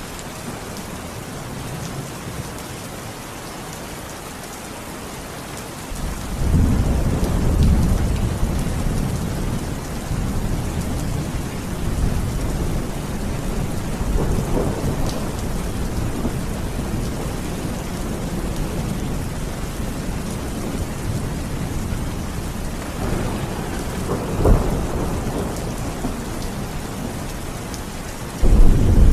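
Steady rain falling, with thunder rumbling over it. A long low roll builds about six seconds in and slowly fades. A short louder peak comes about three-quarters of the way through, and a sudden loud clap arrives right at the end.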